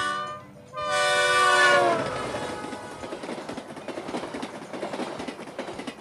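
Train sound effect: a short horn toot, then a longer horn blast that sags in pitch as it ends, followed by the steady rumbling running noise of the train on the rails.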